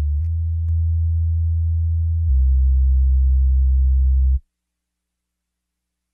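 Deep, steady electronic bass notes that shift in pitch twice, then cut off abruptly.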